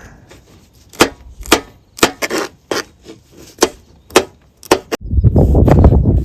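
Knife chopping green chillies on a cutting board, sharp chops about two a second. About five seconds in, a loud gusty wind rumble on the microphone takes over.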